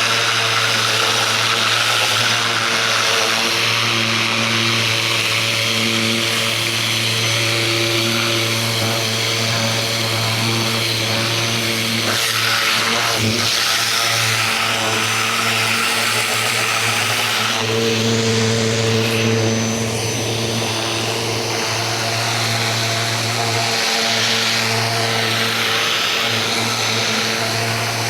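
Ryobi 2000 PSI electric pressure washer running steadily: its motor and pump hum under the hiss of the water jet spraying.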